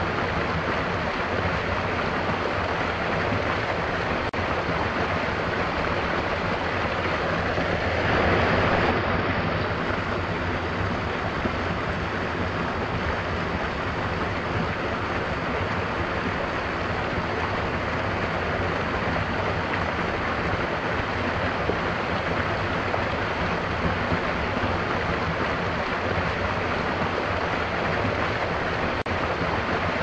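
Small waterfall in a rocky stream pouring steadily into a pool, a continuous rushing and splashing. It swells briefly about eight seconds in.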